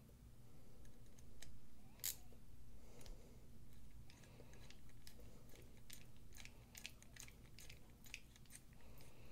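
Small bit screwdriver driving a screw into a folding knife's titanium frame: faint scattered clicks and light metal ticks as the bit seats and turns, with one sharper click about two seconds in.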